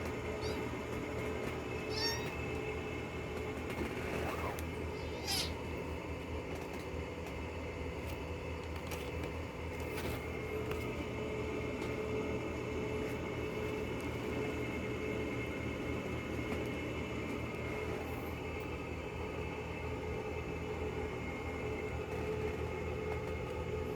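Kittens mewing a few short times, mostly in the first several seconds, over a steady mechanical hum, with a light click near the middle.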